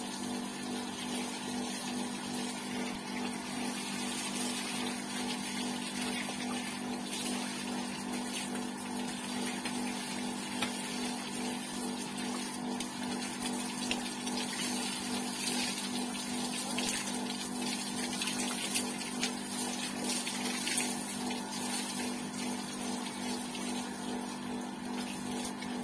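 Water from a garden hose spraying and splashing onto a motorcycle and the wet concrete floor, continuous, with small scattered spatters, over a steady low hum.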